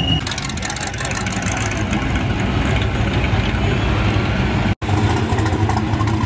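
Rat rod pickup trucks' engines rumbling at low speed as the trucks roll slowly by; the last is a rusty Chevrolet Apache pickup. The sound cuts out for an instant near the end as one truck gives way to the next, and a steady low idle follows.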